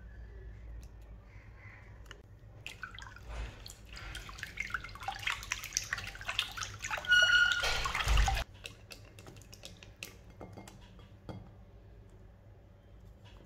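Silicone whisk beating a thin liquid mixture in a glass bowl: quick wet splashing and clicking that builds from a few seconds in, is loudest just before it cuts off abruptly a little past halfway, followed by a few light clicks.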